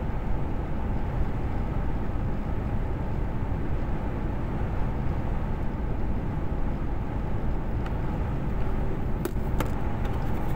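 Steady low rumble of a truck's engine and road noise heard from inside the cab while cruising on a motorway. A couple of light clicks near the end.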